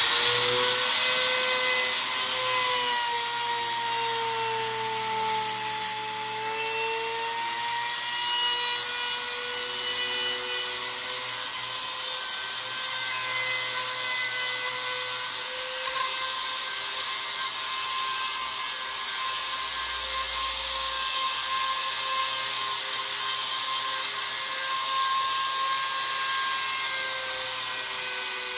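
Handheld trim router running continuously, its bit cutting slowly into wood: a steady high whine that dips slightly in pitch under load a few seconds in, then holds steady over the rasp of the cut.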